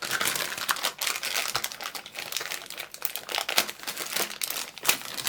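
A Funko Mystery Minis blind bag crinkling and crackling as it is handled and opened by hand, in a rapid, irregular run of crinkles.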